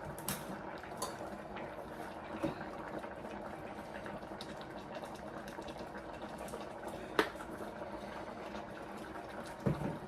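Pot of beans boiling on the stove, a steady bubbling, with a few sharp clicks; the loudest comes about seven seconds in.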